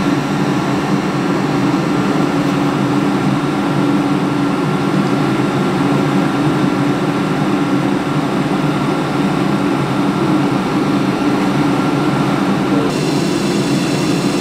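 A steady low mechanical hum. Its character shifts abruptly near the end.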